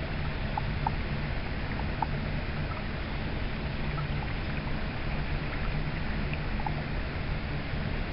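Steady rush of flowing stream water with a low rumble, and a few faint short chirps now and then.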